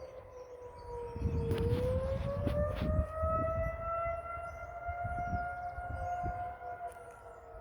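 Federal Signal 2001-series outdoor warning siren sounding the steady tornado alert signal in its weekly test. The wail sags in pitch about a second and a half in, then rises and holds before easing down near the end. Wind rumbles on the microphone in the middle, with a few knocks.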